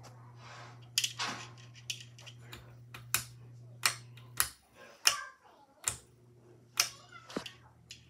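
A Home Impressions ceiling fan's pull-chain switch clicking sharply again and again, over the motor's low, steady hum. The hum cuts out with a click about four seconds in and comes back with another click about a second and a half later, as the fan is switched off and on again.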